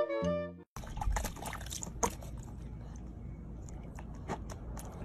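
A few notes of piano music that cut off in under a second. Then water splashing and dripping as a corgi puppy dips its muzzle and paw into a small plastic tub of water.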